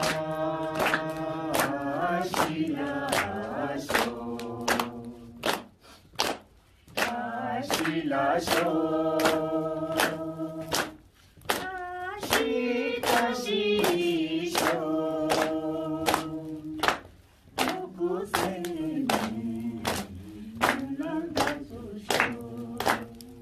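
A small group singing a song together, clapping hands in a steady beat of about two claps a second, with short breaks between sung phrases.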